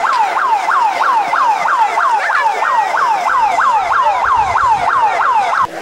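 Alarm siren sounding a rapid, repeating falling yelp, about three to four wails a second, which cuts off abruptly near the end. It is the alarm of an evacuation drill.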